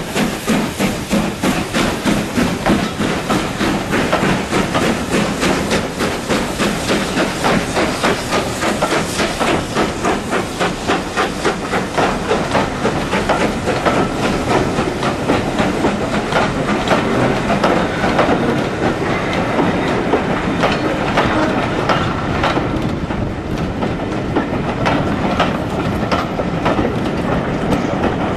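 Passenger coaches of a departing steam train rolling past close by, their steel wheels clattering rhythmically over the rail joints with a continuous rumble.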